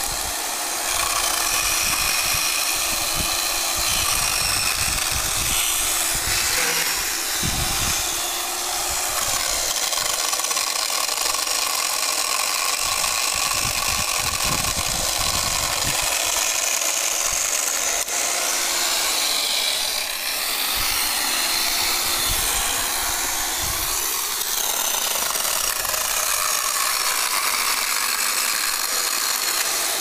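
Electric chainsaw running continuously and cutting through the branches and trunk of a dry tree. The motor whine dips and recovers in pitch several times.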